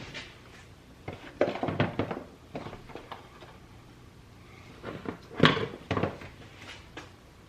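Plastic clicks and knocks of an interior door handle being fitted back into a pickup's door panel: a cluster of knocks about a second in, then two sharp, louder knocks half a second apart near the end.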